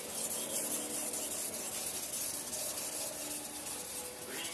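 Single-bevel chef knife stroked along a #2000-grit whetstone on its flat back side at a low angle, steel rubbing on stone in a steady scraping hiss. This light sharpening of the back side is to remove the burr raised from the bevel side.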